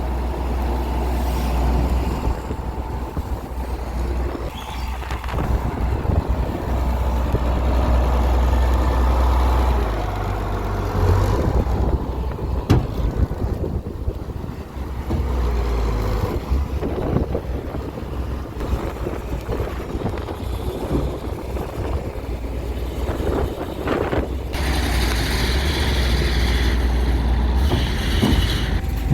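Heavy diesel engines of a truck and a JCB excavator running and working under load, the low rumble swelling and easing, with a few sharp knocks.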